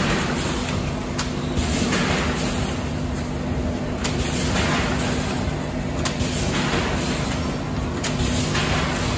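Automatic vertical weighing-and-bagging machine running: a steady mechanical hum with a swell of hissing every couple of seconds and a few sharp clicks as it cycles through filling and sealing bags.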